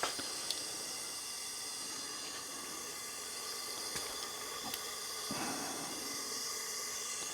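A steady hiss with a few faint, light clicks of small engine parts being handled during valve seal work.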